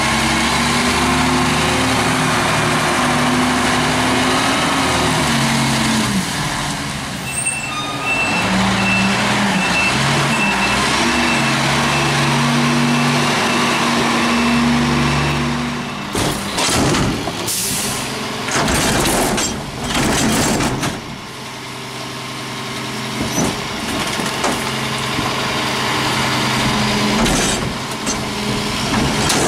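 Crane Carrier McNeilus rear-loader garbage truck's diesel engine running and changing pitch as the truck manoeuvres. A reversing beeper sounds for several seconds in the middle, followed by a few loud air-brake hisses, then the engine runs steadily as the dumpster is lifted.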